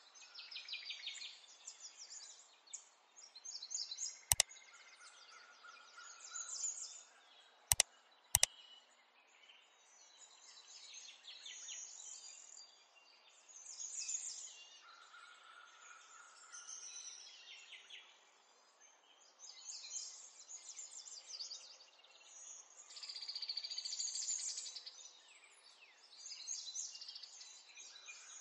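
Birds chirping and trilling in repeated short phrases over a faint hiss, with three sharp clicks, one about four seconds in and two close together about eight seconds in.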